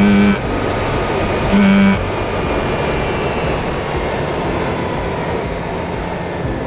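Mazda RX-8 R3 with its catalytic converter removed: two short, loud, steady-pitched blasts of its rotary engine, one at the start and one about a second and a half in, then a steady, lower engine and road noise.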